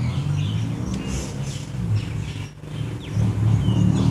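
A low, uneven rumble with birds chirping several times over it.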